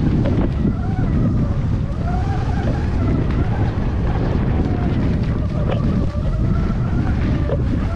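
Sur-Ron electric dirt bike's motor whining, its pitch rising and falling with the throttle, over heavy wind buffeting on the microphone.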